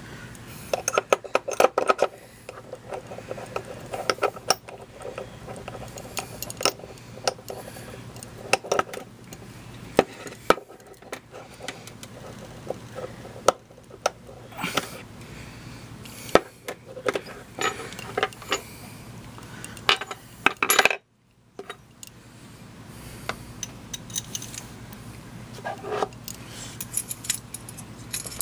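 Mosin-Nagant rifle bolt parts being handled and fitted together by hand during reassembly: scattered sharp metal clicks and clinks, irregular, with the sound dropping out for a moment about two-thirds of the way in.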